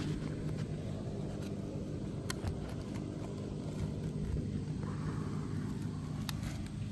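Steady low rumble with a faint low hum running through it, and a few light clicks.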